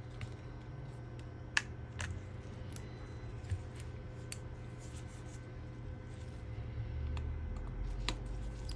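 Scattered light clicks and taps of small repair tools and phone parts being handled, about seven at irregular intervals, over a low steady hum.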